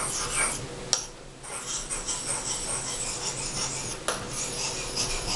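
Scraping and rubbing on a whetstone in repeated strokes, with a sharp click about a second in and another near four seconds.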